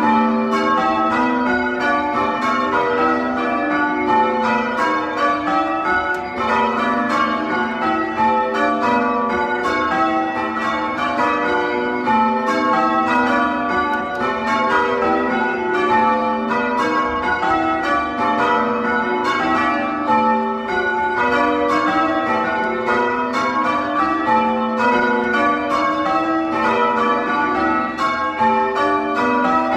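A ring of six church bells being change rung, heard loud from the ringing room below them: an even, unbroken succession of bell strikes, one bell after another.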